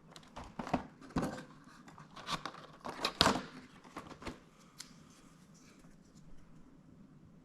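Hands handling the cardboard packaging of a coffee-capsule advent calendar: a run of crisp rustles, tears and clicks over the first four seconds or so, loudest a little past three seconds, then only a few faint clicks.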